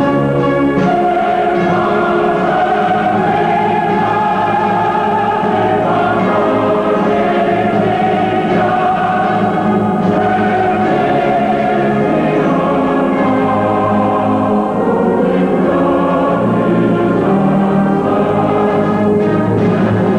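Choral music: a choir singing long held notes over orchestral accompaniment.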